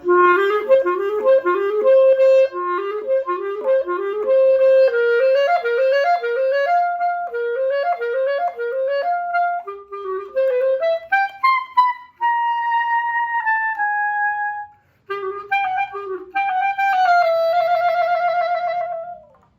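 Solo clarinet, its reed held by an elastic-cord ligature, played in a test. It runs quick slurred note figures for about ten seconds, climbs to held higher notes, and after a brief break ends on a long note with vibrato.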